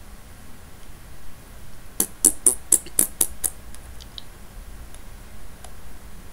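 A quick run of about seven sharp clicks at the computer, about five a second, starting about two seconds in, followed by a few fainter ticks.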